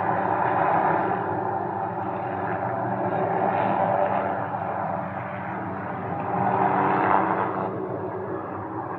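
Small helicopter hovering, a steady rotor and engine drone that swells and eases a few times.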